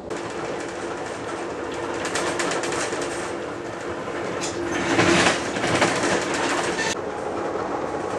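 Passenger train running at speed, heard from inside the car by the window: a steady rumble and rush of wheels on rails, with many short clicks and rattles. It swells to a louder rush about five seconds in.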